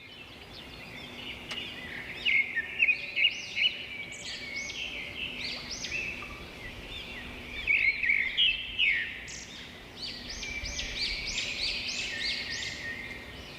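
Several small songbirds chirping and twittering in quick, repeated high notes, with a faint steady hum underneath.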